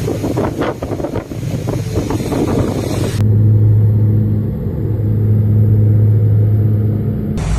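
Boat engine running at sea with wind buffeting the microphone. About three seconds in, the sound cuts to a steady, louder engine drone with a low hum.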